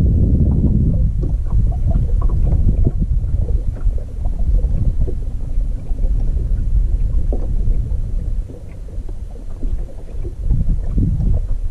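Wind gusting across the microphone: a deep, uneven rumble that eases for a moment about two thirds of the way through, with scattered small knocks over it.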